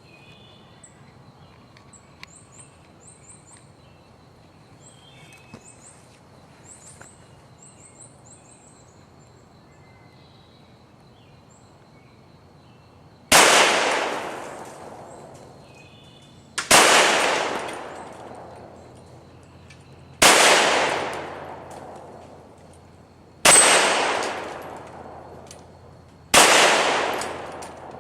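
Glock 21 SF .45 ACP pistol with a 6-inch Lone Wolf extended barrel firing five shots at steel targets, about three seconds apart, each followed by a long echoing tail. Birds chirp in the quiet before the first shot, about thirteen seconds in.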